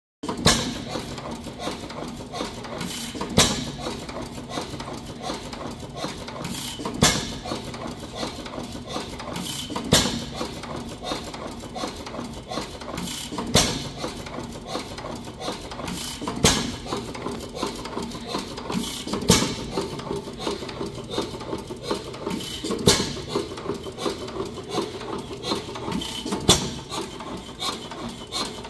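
Fairbanks-Morse 6 hp Type H hit-and-miss engine running on propane: a sharp firing stroke about every three seconds, with steady mechanical clicking from the running gear as it coasts between fires. The widely spaced firing is the hit-and-miss governor holding the engine out of fire until its speed drops.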